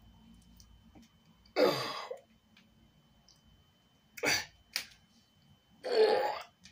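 A man's forceful exhalations while curling a barbell: four huffs, the longest about one and a half seconds in and near the end, with a short one in between.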